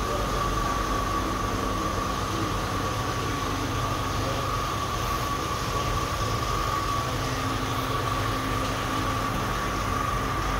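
Shop machinery running steadily: a constant drone of noise with a steady high-pitched whine over a low hum.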